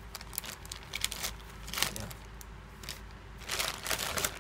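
Plastic courier mailer bag crinkling and tearing as hands pull it open: a string of short crackles, with longer rips about two seconds in and again near the end.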